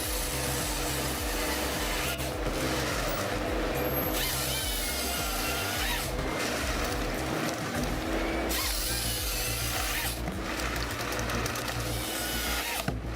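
Power-tool noise that changes abruptly every couple of seconds, over background music.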